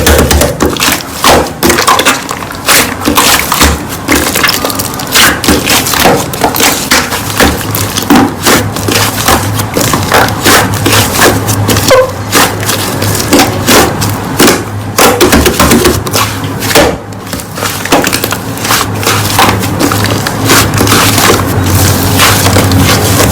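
Slime being squeezed and worked by hand, with dense crackling and popping throughout. Faint background music runs underneath.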